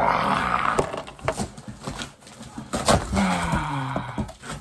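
A taped cardboard box being pulled open by hand: a rasping rip of packing tape and cardboard in the first second, then scraping and a few knocks. About three seconds in there is a low, sliding creak.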